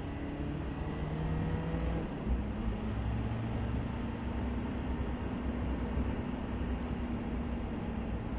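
Car engine and tyre-road noise heard from inside the car as it accelerates: the engine note rises, drops suddenly about two seconds in at a gear change, then runs steadily.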